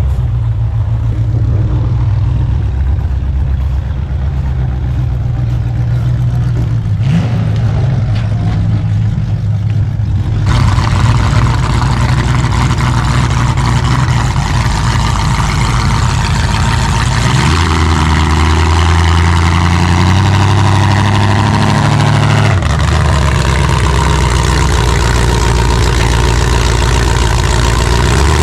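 Demolition derby car engines running. About ten seconds in, a much louder, rougher-sounding engine joins. Later its pitch steps up and down as it is revved.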